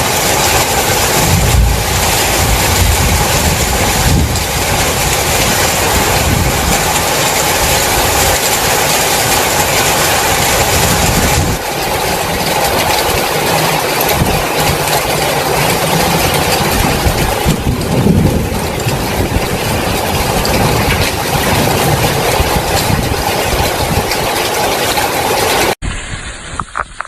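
Heavy rainstorm: a loud, steady rush of torrential rain with a rumbling low end. It cuts off abruptly near the end to a quieter, thinner sound.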